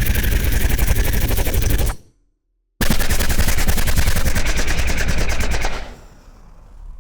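Sci-fi alien machine gun sound effect firing in rapid bursts. One burst cuts off about two seconds in; after a short silence a second burst runs about three seconds, then trails off into a fading tail.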